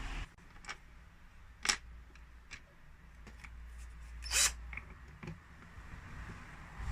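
Light clicks and taps of small hardware being handled while fitting the desk's keypad with screws, with one brief scrape a little past the middle.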